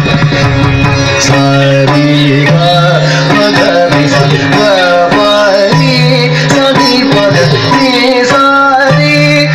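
Carnatic classical music accompanying Bharatanatyam dance: a melody with sliding, ornamented notes over long held low notes and hand-drum strokes.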